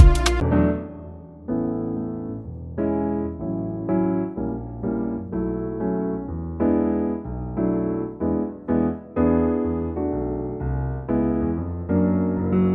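Piano music: a run of chords and notes struck one after another, each ringing and fading before the next.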